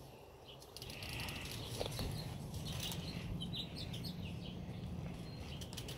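Quiet outdoor ambience: a faint steady low rumble with a few short, faint bird chirps about three seconds in.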